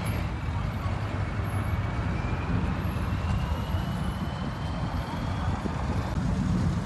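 Pickup truck engine rumbling steadily low as the truck rolls slowly past, with a faint whine slowly rising in pitch.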